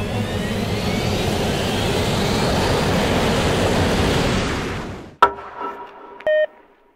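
Fighter jet engine at takeoff power, a loud rushing noise with a rising whine, fading out about five seconds in. It is followed by a sharp hit and a short electronic tone.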